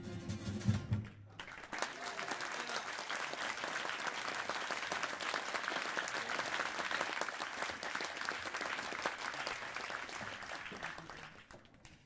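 The live band's last notes stop about a second in, then a hall audience applauds steadily, the clapping dying away near the end.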